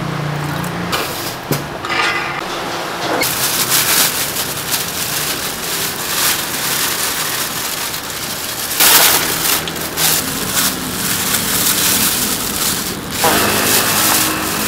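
Busy food-stall kitchen noise: a steady crinkling, sloshing hiss with many small clatters, and one loud burst about nine seconds in. It fits a plastic bag being handled over a steel tray of broth. Brief voices can be heard at the start and near the end.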